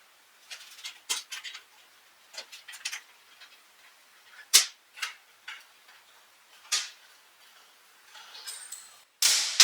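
Scattered metallic clicks and taps of a hand tool working the Allen bolts on an Ola S1 scooter's disc brake caliper, with a louder sharp noise near the end.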